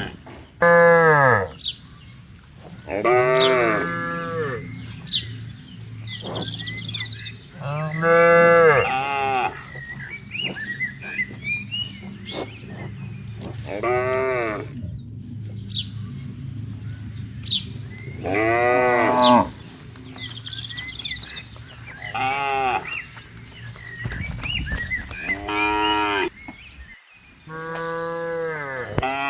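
Cattle mooing: about eight separate moos, each roughly a second long and dropping in pitch at its end.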